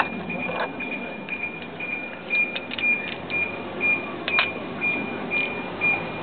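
A few light metal clinks as the variator fan is lifted off a 50cc scooter's crankshaft and handled, over a high, even tone that repeats about twice a second and stops near the end.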